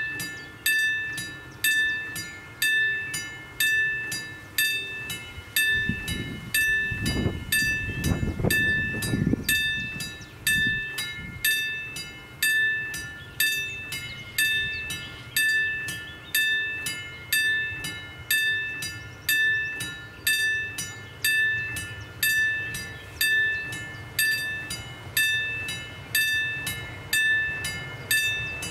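Level crossing warning bell ringing steadily while the crossing is closed, about two strikes a second, alternating between two pitches. A low rumble swells and fades around seven to nine seconds in.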